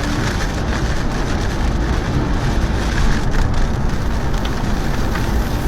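Steady roar of storm wind and heavy rain, with a strong low rumble underneath.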